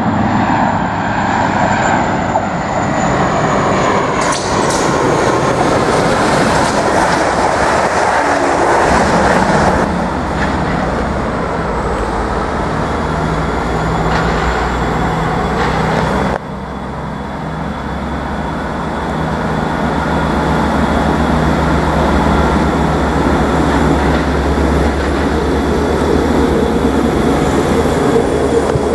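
Class 444 electric multiple unit running over pointwork, with rushing wheel-and-rail noise. Then a Class 158 diesel multiple unit draws into the platform, with a steady low diesel engine hum and a faint high whistle.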